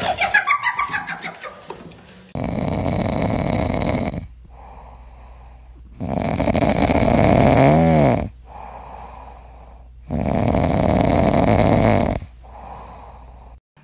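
French bulldog snoring in its sleep: three long, loud snores about four seconds apart, each followed by a quieter breath out, one ending in a whistling rise. A brief scuffle of clicks comes before it.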